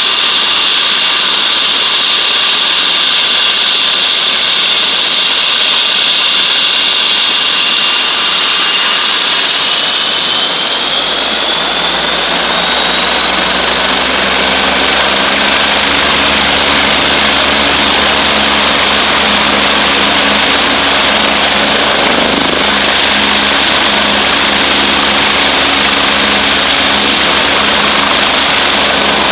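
Leonardo AW109SP helicopter's twin turboshaft engines whining loudly with the main rotor turning on the ground; about ten seconds in the whine rises in pitch, and a low, even rotor beat comes in beneath it.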